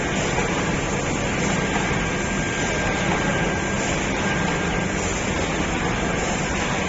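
ZFM-1080KC automatic film laminating machine running: a steady mechanical rumble and hiss that holds an even level, with a faint high whine above it.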